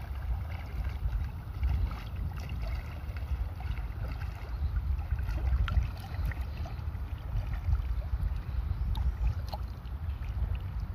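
Wind rumbling on the microphone over small waves lapping and splashing in shallow sea water, with scattered little splashes throughout.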